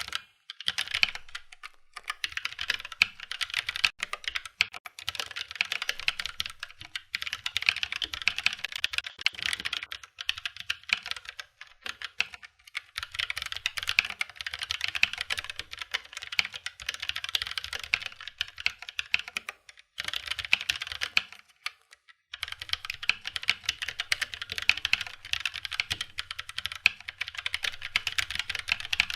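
Typing on a Keychron K3 Version 2 low-profile mechanical keyboard with tactile brown switches: fast, continuous key clicks in long runs, broken by a few short pauses.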